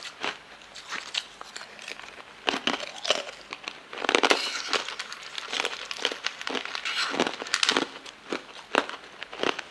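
Close-up crunching and chewing of hard, colourful translucent candy discs, a dense run of crackly crunches, heaviest about four seconds in and again a few seconds later.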